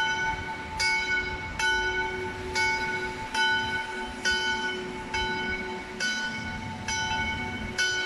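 Church bell ringing for noon, swung and struck a little more than once a second, each stroke ringing on into the next.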